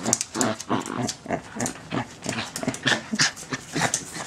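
Small Chihuahua-Dachshund mix dog playing rough with a plush sheepdog hand puppet: quick, irregular panting breaths and short noises as she bites and tugs at it.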